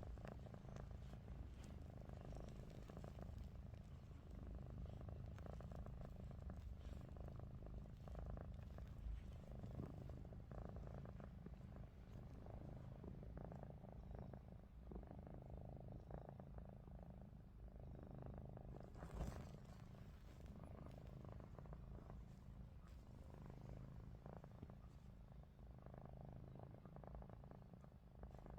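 Domestic cat purring, a faint low rumble that swells and eases every couple of seconds with its breathing. A brief rustle is heard about two-thirds of the way through.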